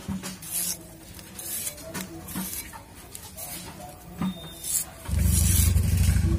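Crisp tearing and snapping, a few separate times, as the fibrous outer sheaths of a banana stem are stripped and cut away against a boti blade. About five seconds in, a loud engine with a low, rapid putter comes in and covers everything else.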